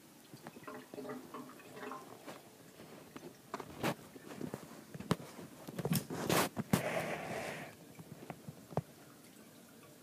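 Food-coloured water being poured from a plastic jug into a PVC AC condensate drain line, with scattered knocks and clicks of the jug against the pipe, loudest about six to seven seconds in. The drain swallows the water with no backing up, the sign of a clear line.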